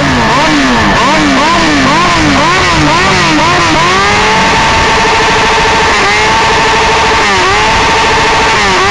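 Sport motorcycle engine revved hard while standing still: quick throttle blips rising and falling about twice a second, then held at high revs with a few brief dips.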